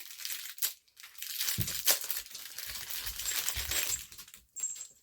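Thin plastic packaging crinkling and crackling as a small packet is torn open and handled, with a sharp snap about two seconds in and dull knocks of handling.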